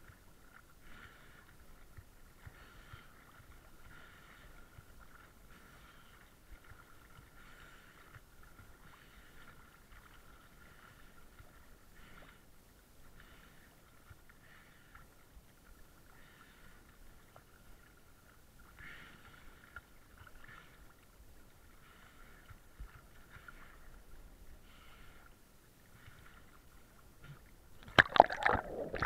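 Faint steady high whine with soft swishes about once a second, then loud splashing and sloshing near the end as water washes over the camera.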